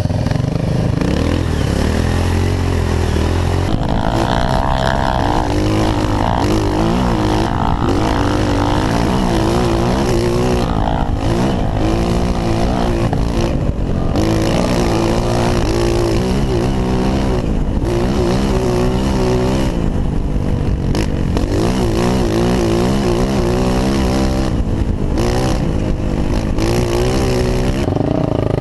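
Honda CRF 230F dirt bike's single-cylinder four-stroke engine, heard up close from the rider's helmet, revving up and easing off over and over as the throttle is worked along the trail.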